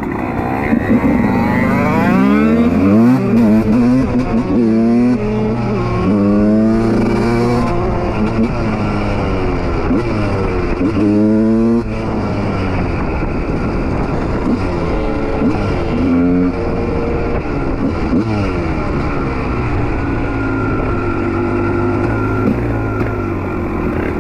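Two-stroke supermoto motorcycle engines revving, the pitch sweeping up and down repeatedly over a steady running note, with the sharpest rev sweeps in the first half and a smoother, steadier run toward the end.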